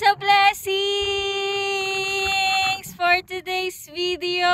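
Background music: a high singing voice holding long, steady notes, with short gliding phrases in between.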